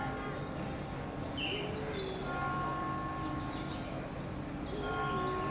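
Birds chirping in short high calls, over soft held tones that run steadily underneath.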